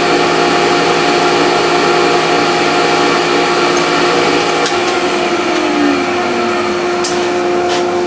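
Delta DC-380 15-inch thickness planer with a helical cutter head running and planing an oak plank: a loud, steady machine sound with a constant whine. The helical head takes many small cuts from individual teeth instead of three knife strikes, and measures about 90 dB.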